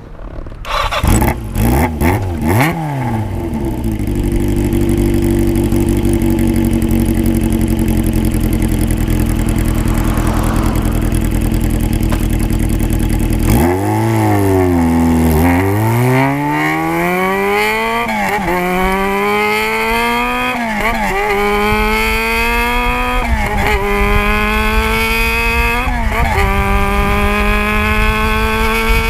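Engine exhaust through a custom one-off silencer: two quick revs about one to three seconds in, then a steady idle. From about fourteen seconds in the vehicle pulls away and accelerates through the gears, the pitch climbing and then dropping at each shift, about every two and a half seconds.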